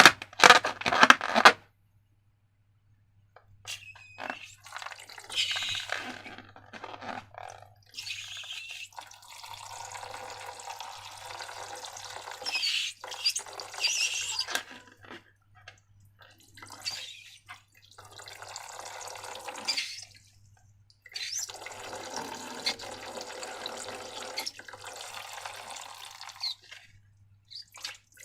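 Liquid pouring and dripping in several stretches of a few seconds each, with short pauses between. A brief burst of loud rapid clicks comes first.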